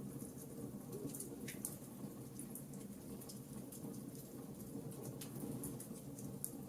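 Wood fire crackling in a fireplace: scattered small, sharp pops and snaps over a steady low rumble of the flames.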